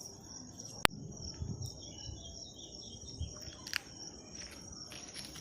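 Crickets chirping in a steady high trill, with one sharp snap about a second in and a fainter one near four seconds.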